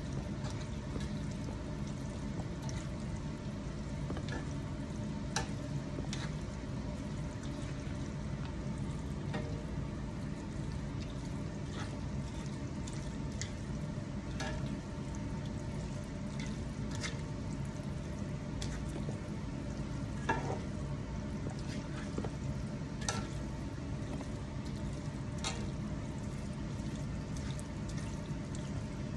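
Rotini pasta in a creamy Alfredo sauce being stirred in a cast iron skillet, the sauce sizzling steadily. A silicone-headed spoon makes scattered light clicks against the pan.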